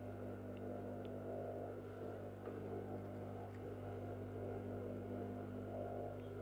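Low, steady electrical hum with a few faint taps and rustles from fabric being handled by hand.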